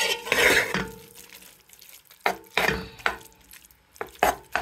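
A spoon stirring and scraping through rice noodles and prawns in a pot, with several short knocks of the spoon against the pot.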